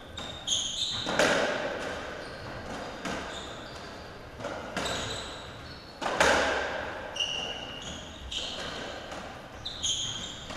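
Racketball rally: the ball smacking off rackets and the court walls every second or two, each hit echoing in the enclosed court, with short sharp squeaks of shoes on the court floor between shots.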